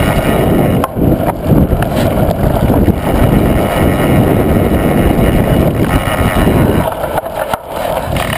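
Mountain bike rolling down a dirt and black-sand track: a loud, steady rumble of tyres and wind on a chest-mounted camera's microphone, with a few sharp knocks. The rumble eases about seven seconds in as the bike slows.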